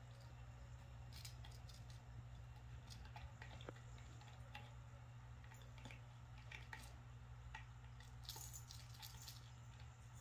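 Faint scuffles and scratches of two kittens play-fighting on a shaggy rug and around a sisal scratching post, over a steady low hum, with a cluster of scratchy rustles about eight seconds in.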